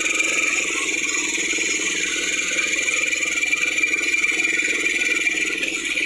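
Small ATV engines running steadily as the quad bikes ride along at low speed.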